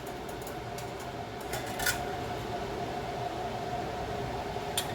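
Steady hum of a fan, with a few light metal clinks about one and a half to two seconds in and again near the end, as metal tongs handle the canning lids.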